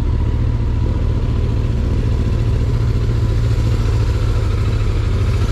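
Car on the move, a steady low engine and road rumble heard from inside the cabin.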